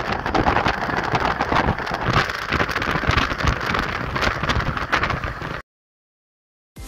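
Road and wind noise from a car travelling at highway speed, rushing and buffeting the phone's microphone; it cuts off suddenly about five and a half seconds in.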